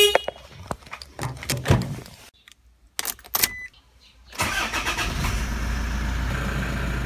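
Car door opened and shut with a few knocks and clicks, then the key turned and the Toyota's engine starts about four and a half seconds in and settles into a steady idle.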